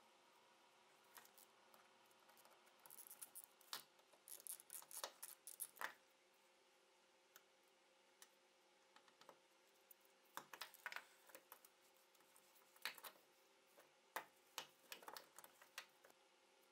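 Small steel parts of an old shotgun's action clicking and scraping as they are handled and separated on a wooden workbench. There are quick runs of light metallic clicks about three to six seconds in and again from about ten seconds on.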